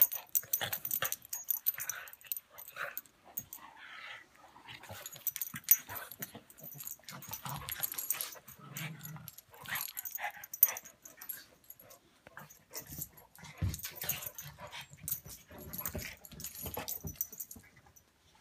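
An English mastiff puppy and a pug play-fighting: scuffling, short growls and metal collar tags jingling, with a heavy thump about three-quarters of the way through.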